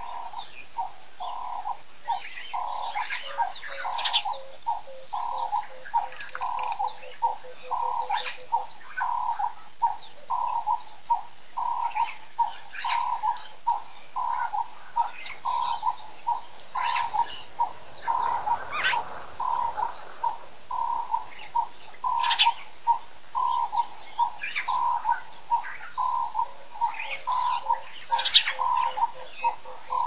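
A bird repeating one short, even note about two to three times a second, without a break, while other birds give brief chirps now and then.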